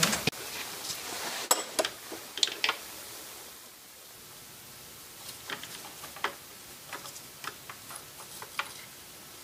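Scattered light clicks and taps of hand tools on metal as a loosened glow plug is worked out of its bore in a diesel cylinder head, with a few sharper clicks in the first three seconds and lighter, irregular ones later.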